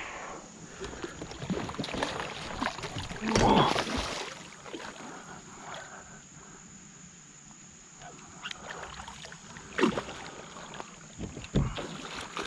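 Water splashing and sloshing around a kayak with scattered knocks, a hooked muskie being fought alongside; the loudest splash comes about three and a half seconds in, with sharp knocks near the end.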